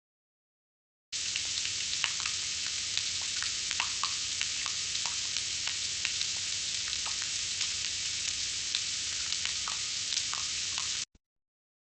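Food deep-frying in hot oil: a steady sizzle with frequent small pops and crackles, starting abruptly about a second in and cutting off sharply near the end.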